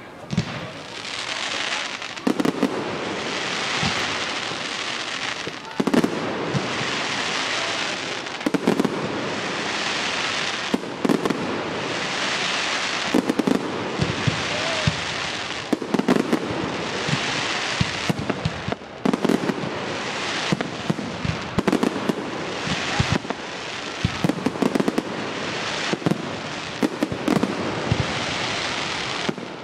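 Fireworks display: many sharp bangs of bursting shells, sometimes several close together, over a continuous hiss that swells and fades every second or two.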